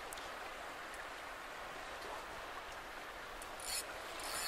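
Steady hiss of wind and choppy water around a small boat, with a brief high rasp about three and a half seconds in.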